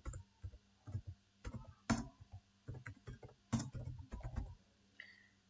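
Typing on a computer keyboard: a run of irregular key clicks that stops about four and a half seconds in.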